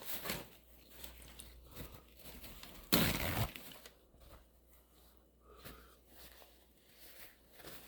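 Quiet eating noises: soft chewing and small mouth sounds, with one short, louder crunchy noise about three seconds in.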